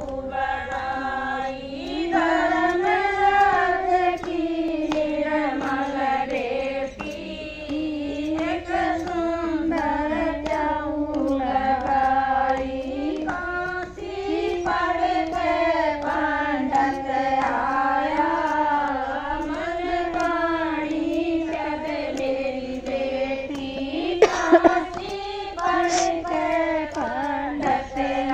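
A group of women singing a Hindi devotional bhajan together in unison, with a few sharp hand claps near the end.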